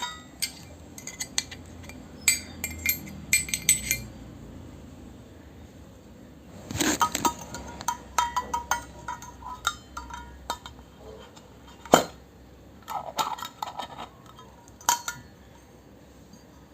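Miniature toy kitchenware pieces clinking and tapping as they are handled and set down: clusters of small clicks with brief ringing, and one sharper knock about twelve seconds in.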